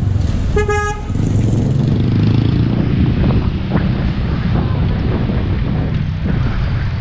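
A single short vehicle horn toot about half a second in, over the steady low rumble of street traffic.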